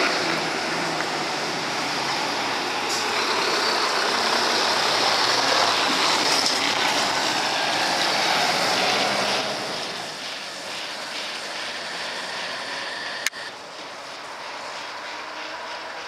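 Scania FPT fire engine pulling out and driving away, its diesel engine and tyres loudest as it passes, then fading about ten seconds in. A single sharp click about thirteen seconds in.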